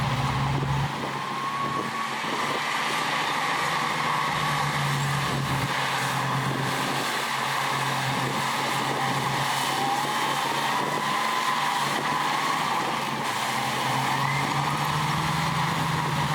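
Diesel engines of heavy earthmoving machinery, a bulldozer and dump trucks, running steadily under work, with a low hum and a few faint whines that waver in pitch.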